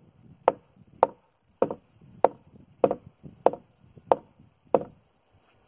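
Hammer driving a nail that blew out the side of a wooden framing board back into the wood: eight sharp, even strikes a little over half a second apart.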